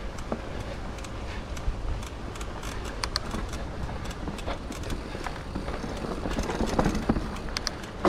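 Scott Genius mountain bike rolling fast over a dirt trail: a steady rumble of tyres on the ground with scattered sharp clicks and rattles from the bike and loose stones.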